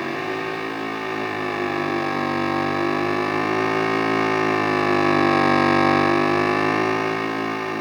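Acoustic guitar through a Wampler Ethereal delay pedal, the repeats piling up into a sustained, chord-like drone. The pitch wavers slowly up and down, and the drone swells louder about five to six seconds in before easing back.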